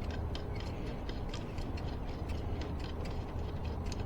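Screwdriver tightening spoke nipples onto new spokes in a bicycle rim: a run of small, irregular metallic clicks, a few a second, over a steady low background rumble.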